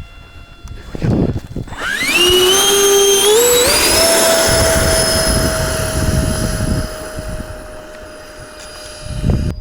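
Electric ducted fans of a scale RC airliner spooling up in a few steps to a steady high whine with a loud rush of air. Low gusts of wind buffet the microphone about a second in and again near the end.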